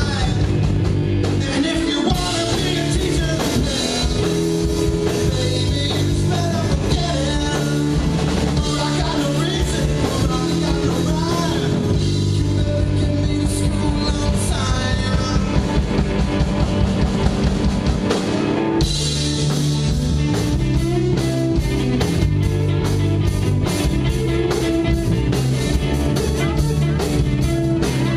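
Rock band playing live: drum kit and electric guitar at full volume, with a short break just before two-thirds of the way through, after which the drums keep a steady, even cymbal beat.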